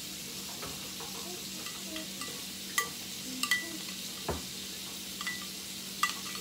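Metal spoon stirring yeast into warm water in a glass bowl, clinking against the glass a handful of times in the second half.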